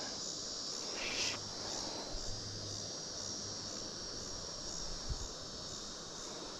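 Steady high-pitched chorus of insects trilling without a break, with a brief rustle of handling about a second in and a soft low knock near five seconds.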